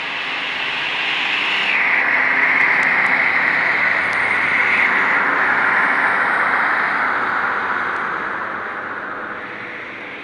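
Class 156 Sprinter diesel multiple unit moving off past the platform, its underfloor Cummins diesel engines and wheels on the rails building to a loud rush about two seconds in, then fading as it draws away.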